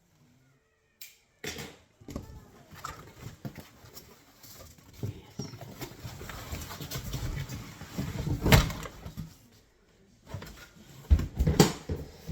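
Unboxing handling: cardboard and packing material rustling and scraping, with scattered clicks and taps, a loud knock about eight and a half seconds in and a few more knocks near the end.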